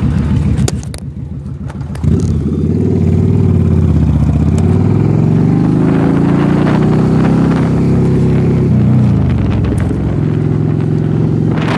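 Cruiser motorcycle engine pulling away under throttle. It opens up sharply about two seconds in and climbs in pitch, with a dip at a gear change, then climbs again. Near the end it drops back and settles to a steady run.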